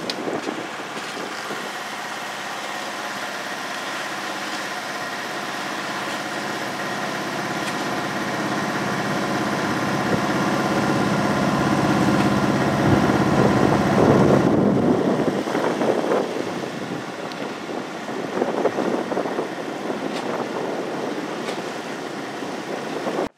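A small sailboat's motor running steadily as the boat motors out of the marina, with wind buffeting the microphone. The engine tone grows louder through the first half and eases off about fifteen seconds in.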